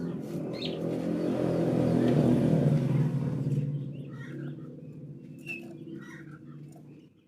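A passing motor vehicle's engine hum swells to a peak about two to three seconds in, then fades away. Short, scattered bird chirps follow it.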